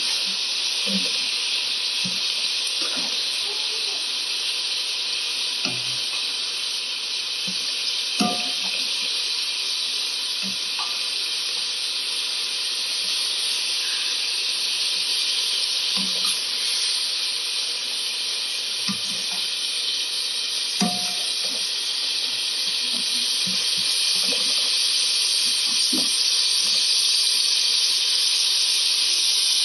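Ground beef and onion sizzling as they fry in a pan: a steady hiss, with occasional short scrapes and taps of a spatula stirring the meat. The sizzle grows a little louder over the last several seconds.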